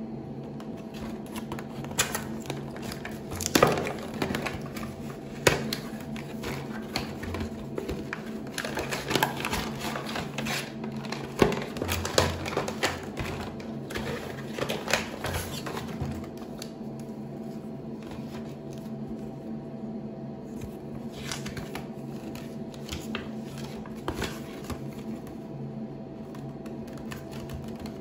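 Hands crinkling and rustling the plastic pouch of a teeth-whitening kit and unfolding its paper instruction leaflet: irregular crackles and clicks, busiest in the first half and sparser later, over a steady low hum.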